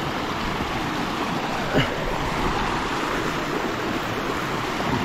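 Mountain creek rushing steadily over rocks in a small rapid, a continuous splashing wash of water. One brief, short higher sound stands out about two seconds in.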